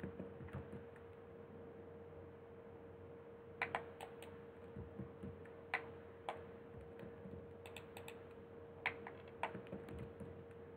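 Computer keyboard keys and mouse buttons clicking at irregular intervals, in small clusters, over a steady faint hum.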